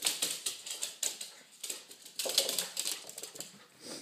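A dog's claws clicking and scrabbling on a hard tile floor as it plays with a toy: clusters of rapid clicks, loudest a little past halfway.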